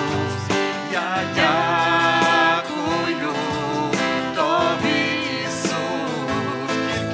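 Christian praise song: a voice singing with wavering, held notes over steady instrumental accompaniment.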